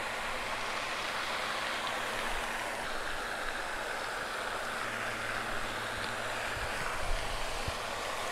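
Steady, even rushing noise of moving water, with a few faint knocks near the end.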